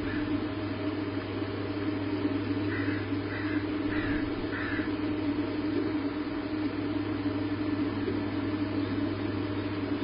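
Four short, harsh bird calls, evenly spaced about two-thirds of a second apart, a little under three seconds in, over a steady low hum.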